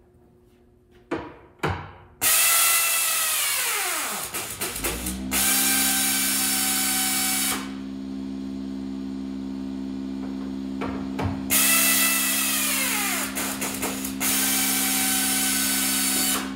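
Power drill run twice, most likely boring holes in the van's floor for rivet nuts. Each time its whine starts high, drops in pitch over a couple of seconds as the bit loads up, then holds steady for a few seconds. A steady low hum runs underneath from about the middle.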